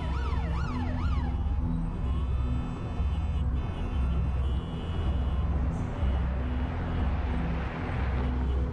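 Emergency vehicle siren sweeping quickly up and down, fading out about a second in, over dramatic background music with a pulsing low beat. A swell of rising noise builds near the end.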